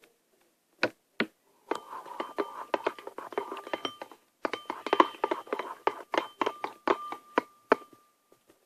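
A whiteboard pen stirring in a bowl, clicking and knocking rapidly against its side so that the bowl rings at a steady pitch. Two single knocks come first, then two bursts of fast stirring with a short break between them.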